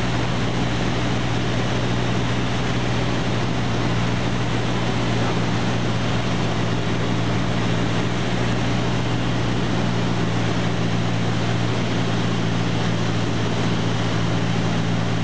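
Cessna 152's four-cylinder Lycoming engine and propeller running steadily, heard from inside the cockpit as a constant low drone over a hiss of air noise, on final approach to land.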